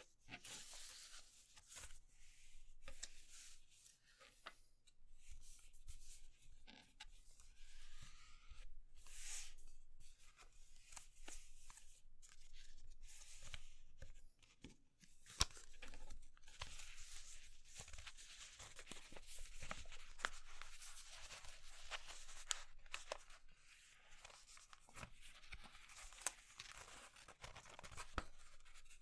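A sheet of paper being folded and creased by hand: soft rustling and sliding swishes as it is turned and smoothed, with a few sharp ticks, the loudest about halfway through.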